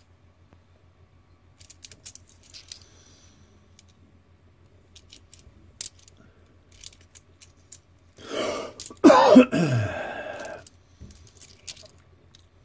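Faint clicks of coins being handled in the fingers. About eight seconds in, a man makes a loud throat noise lasting a couple of seconds, his voice sliding steeply down in pitch.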